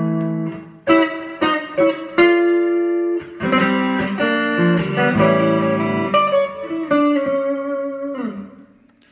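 Electric guitar, a Fender Stratocaster on its neck pickup (Texas Special single-coil), played through a 5F4 tube amp with light compression and reverb: a short passage of chords and single notes that rings out and fades away near the end.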